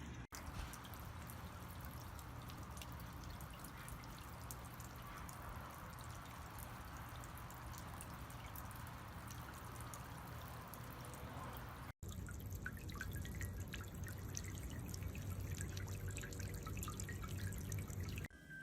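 Mademax 1.4 W solar floating fountain pump spraying water into a bird bath: soft, steady splashing and dripping as the spray falls back into the bowl. The sound breaks off briefly twice. After the second break it is a little louder, with more distinct drips.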